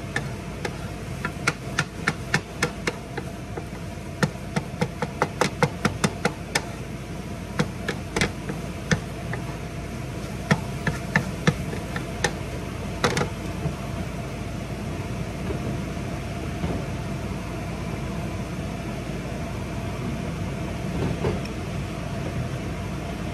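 Wooden spatula knocking and scraping against a griddle pan while scrambled eggs are chopped and stirred: a quick run of taps for about the first thirteen seconds, then only scattered ones. A steady hum of the stove's vent fan runs underneath.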